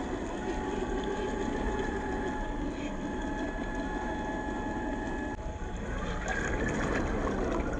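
An RC crawler's 550 electric motor and gearbox running with a thin steady whine over a rough rumbling noise. The whine stops about five seconds in and the noise changes character.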